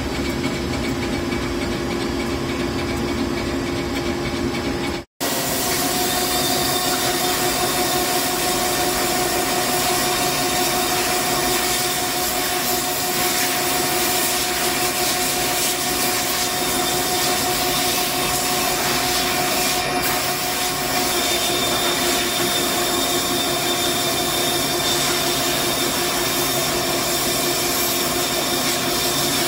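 CNC machine running steadily during machining, a continuous mechanical noise carrying a few steady tones. A brief dropout about five seconds in, after which the noise carries a higher tone.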